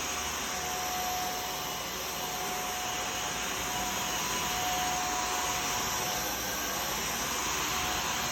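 Samsung Jet cordless stick vacuum running steadily: a continuous rush of air with a thin whine, demonstrating its noise at one power stage.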